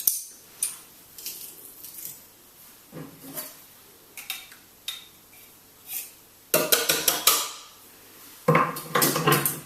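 Metal kitchen utensils knocking and clattering as a garlic press is worked: scattered light clicks and taps, then two longer, louder bursts of clattering, one a little past halfway and one near the end.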